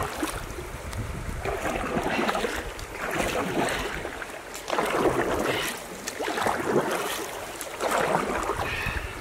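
Wooden paddle stroking through river water from a canoe, a swish and splash about every one and a half seconds, with some wind on the microphone.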